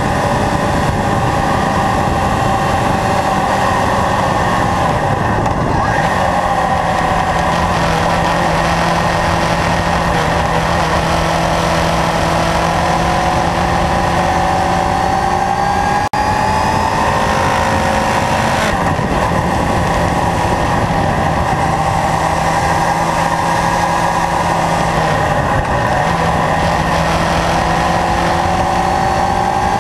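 Kawasaki Zephyr's air-cooled inline-four engine running on the move, its pitch rising and falling repeatedly as the throttle opens and closes, over a steady rush of wind and road noise. A brief dropout comes about halfway through.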